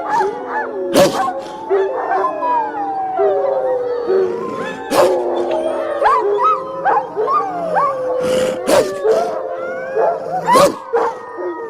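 A pack of wolves howling together in chorus, with several long gliding howls overlapping and short rising yips between them. A few sharp clicks cut through the chorus.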